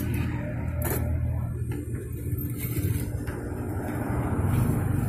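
Sewing machine motor humming steadily, with a few light clicks as the fabric is handled at the needle; the hum grows a little louder near the end.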